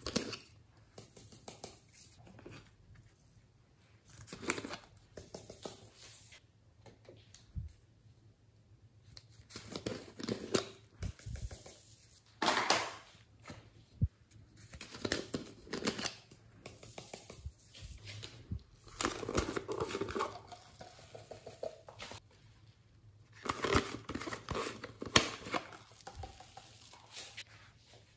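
Plastic bottles of foam beads being handled, opened and poured, in irregular bursts of rustling and rattling with short quiet gaps between.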